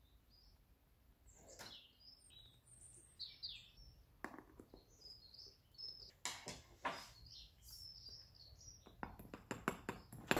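Small birds chirping in the background, with scattered light clicks and taps of a screwdriver and small metal part being worked at a sand mould, coming as a quick run of taps near the end.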